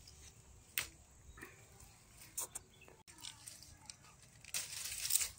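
Hand rustling through papdi bean vines and dry leaves while picking the pods, with a few short sharp clicks and a longer, louder rustle near the end.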